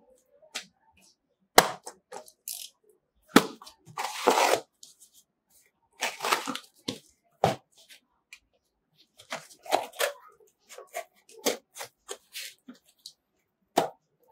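A taped cardboard parcel being handled and turned over: scattered knocks, taps and scraping rustles of cardboard, with a sharp knock about a second and a half in, another about three and a half seconds in, and a longer scraping rustle around four seconds.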